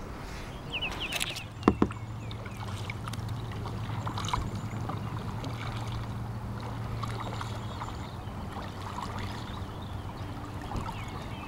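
Kayak paddling: the paddle dipping and splashing with water dripping, and a single sharp knock about two seconds in, typical of the paddle striking the kayak. A steady low hum runs underneath through the middle.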